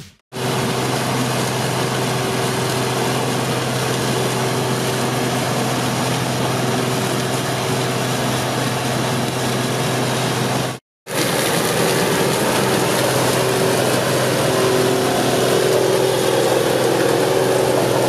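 Claas Dominator 108SL Maxi combine harvester running steadily while harvesting grain maize: a constant engine and machinery drone with a steady hum. The sound cuts out briefly about eleven seconds in, then carries on and grows slightly louder near the end.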